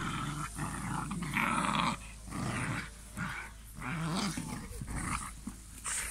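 Cane Corso puppies growling in a string of rough bursts as they tug a soccer ball between their jaws, the loudest growl about a second and a half in.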